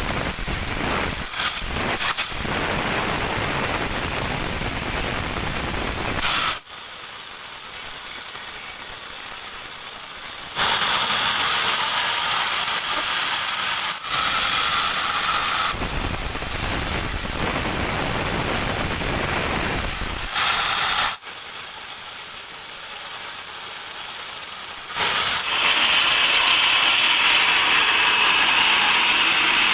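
Band sawmill cutting teak, a steady hissing saw noise that changes abruptly several times as separate takes follow one another.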